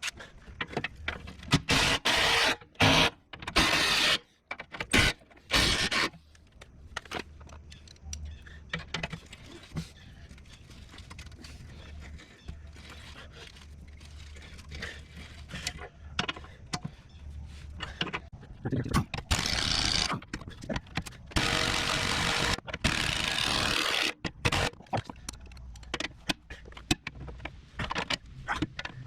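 Hand tools working rusted bolts on a steel skid plate: metal clinks, knocks and scrapes, with several louder stretches of grinding or rasping lasting a second or two each.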